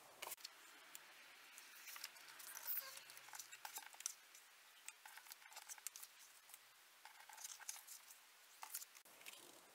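Faint rustling and light tapping of paper journaling cards being shuffled, picked up and laid down on a paper bag.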